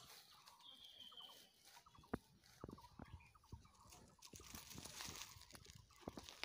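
Near silence: faint outdoor background with scattered soft clicks and ticks, one a little sharper about two seconds in, and a brief high chirp about a second in.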